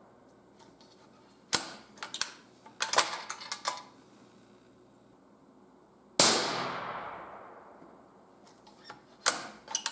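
260 Remington bolt-action rifle: a run of sharp metallic clicks as the bolt is worked and a fresh round chambered, then a single gunshot about six seconds in whose report rings and echoes away over a couple of seconds. Near the end, more clicks as the bolt is lifted open again.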